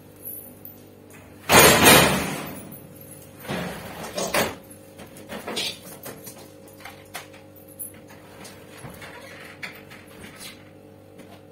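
Freestanding gas cooker on castors being rolled back into place across the kitchen floor: a loud rolling scrape about a second and a half in, a shorter one a couple of seconds later, then light knocks and clicks as it settles.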